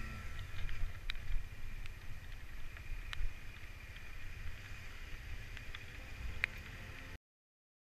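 Muffled motorcycle on a rough rocky track, heard through a helmet-mounted action camera: an uneven low rumble of engine and wind on the microphone, with a few sharp knocks and rattles as the bike goes over stones. The sound cuts off abruptly near the end.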